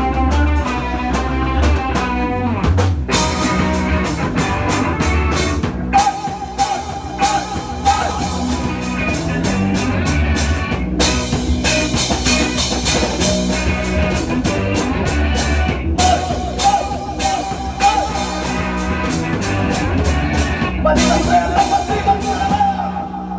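Live rock band playing: electric guitars, bass guitar and a drum kit, with vocals, and some held guitar notes ringing over the drums.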